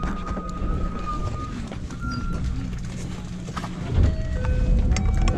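Steady low rumble inside a train car standing at a station, with a held high tone during the first second and a half and a few short tones at different pitches about four seconds in.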